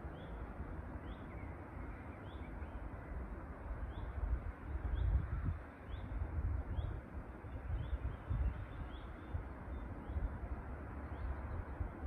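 A songbird repeating short, high rising chirps, one or two a second, over the low, gusting rumble of wind on the microphone.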